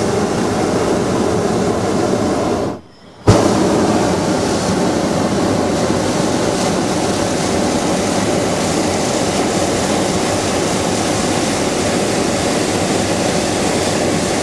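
Hot-air balloon's propane burner firing overhead, a loud steady rush that cuts out for about half a second around three seconds in and comes back abruptly.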